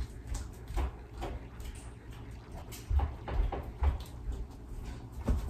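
Footsteps on a hard floor with scattered light knocks and soft low thumps at irregular intervals, as someone walks off and comes back.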